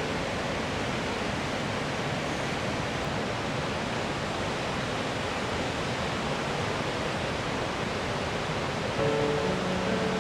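Steady, even rush of a tall three-tier waterfall plunging 83 m. Soft music with held notes comes in about nine seconds in.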